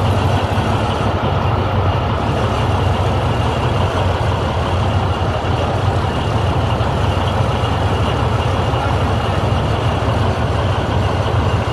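Northwest 80-D cable shovel's engine running steadily at idle, a deep, unbroken drone.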